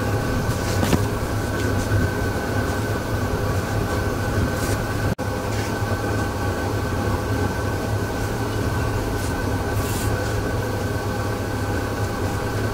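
Steady hum of a solar boat's electric drive under way, a stack of even tones over a wash of water and wind noise. The sound cuts out for an instant about five seconds in.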